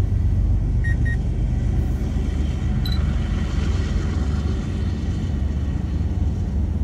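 Steady low rumble of a long freight train of autorack cars rolling past. Two short beeps come about a second in. A small camera drone's faint propeller whine follows as it lifts off.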